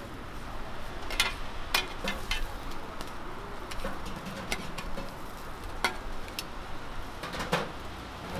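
Metal spatulas clicking and scraping against a flat steel griddle as thick millet pancakes are turned and moved, a few sharp irregular clicks over a steady background hiss.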